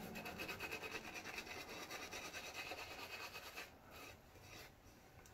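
Badger-hair shaving brush scrubbing lather over stubble in fast, even strokes: a soft rhythmic bristle rubbing that falls away after about three and a half seconds.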